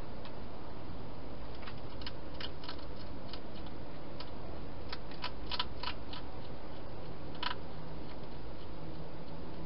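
A hedgehog eating from a bowl inside a plastic feeding box, crunching its food: a run of sharp, irregular clicks, bunched together about halfway through, over a steady hiss.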